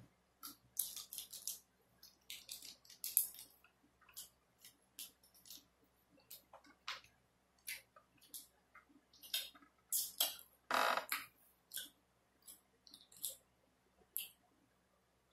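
Close-miked eating sounds: wet mouth smacks and clicks of chewing in quick irregular succession, with one longer, louder smack about eleven seconds in.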